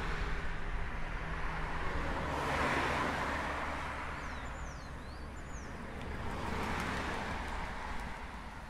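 Cars passing on a road: an engine rumble fading away at the start, then tyre noise swelling and fading twice more, about three and seven seconds in.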